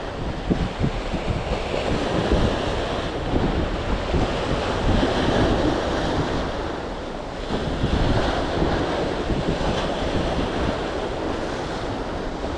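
Wind gusting on the microphone over a steady wash of sea waves, the surf swelling a little around the middle and again near the end.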